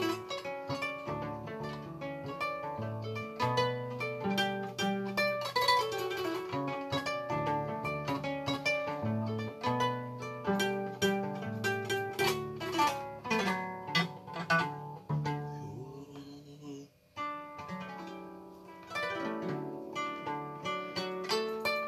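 Solo acoustic kora, the West African calabash-bodied harp-lute, being plucked: bass notes repeat under quicker treble runs. About two-thirds of the way through the playing thins to a few notes with a brief pause, then picks up again.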